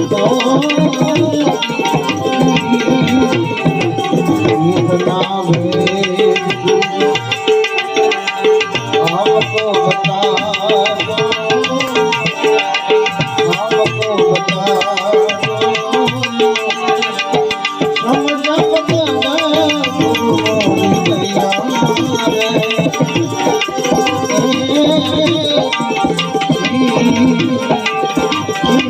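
Tabla playing a dense rhythm under sustained melody-instrument notes: an instrumental interlude between sung verses of a devotional bhajan.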